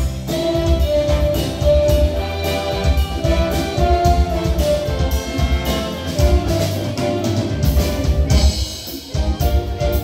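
Brass band playing: trumpets and a euphonium hold melody notes over a drum kit beat, with a brief dip in volume near the end.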